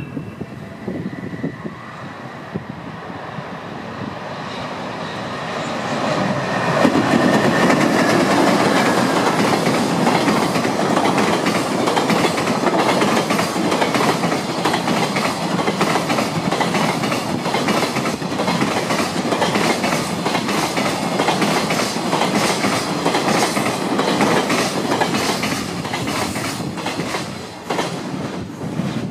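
Container freight train running through a station without stopping. It builds from a distant rumble over the first several seconds into a long, loud run of wagon wheels clicking over the rail joints, which dies away near the end as the last wagons pass.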